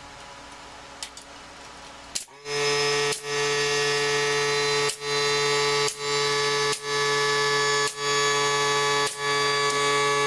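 A steady mechanical hum at one unchanging pitch starts suddenly about two seconds in and runs on loudly, broken by about six brief dropouts.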